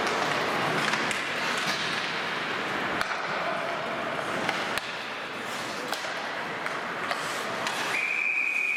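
Ice hockey play in a large rink: skates scraping on the ice, with sharp clicks and knocks of sticks and puck and voices echoing in the hall. Near the end a referee's whistle sounds one long steady note, stopping play.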